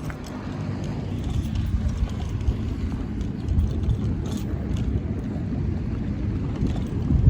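Low, rough rumble of a motor vehicle running close by, holding steady.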